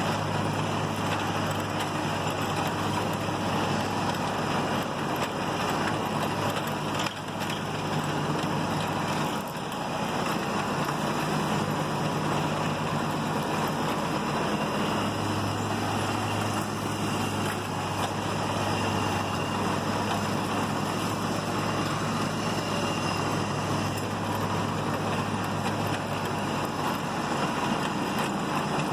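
Scag Turf Tiger zero-turn mower running steadily as it drives along a rough path, its liquid-cooled Kawasaki engine giving a low, even hum. The low engine note drops back for several seconds about a third of the way in, then comes back.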